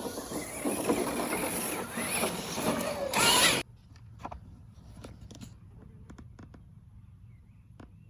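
Electric motor and geared drivetrain of a radio-controlled rock crawler running over the ground, a noisy whirring that cuts off abruptly about three and a half seconds in. After that come only a few faint clicks.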